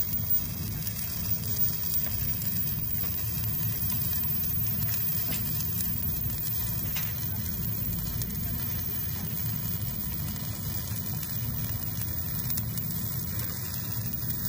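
Stick-welding arc on a 7018 electrode crackling and sizzling steadily through a final pass, with a low hum underneath.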